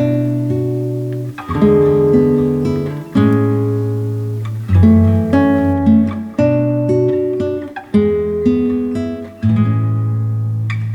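Background music: acoustic guitar playing slow chords, a new chord struck about every second and a half and left to ring over a low bass note.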